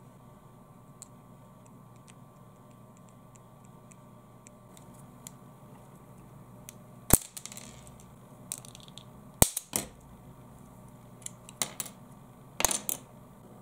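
Red plastic pen bent by hand until its barrel breaks. Several seconds of faint handling, then a sharp crack about halfway through, followed by further cracks and crunches as the plastic splits into two pieces near the end.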